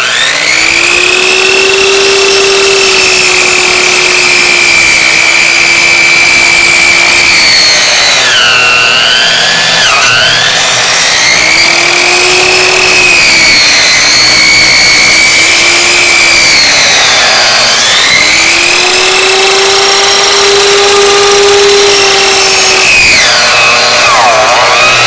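Electric chop saw running continuously while cutting through a bone-in New York strip roast: a loud whine that spins up at the start, then sags in pitch several times as the blade takes load in the meat and bone before recovering.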